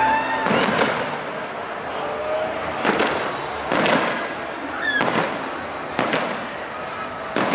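Fireworks display: aerial shells bursting in about six sharp bangs, roughly one a second, over a continuous noisy background of further bursts.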